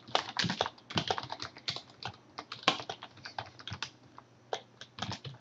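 Typing on a computer keyboard: quick, uneven keystroke clicks, with a brief pause about four seconds in before a few more keys.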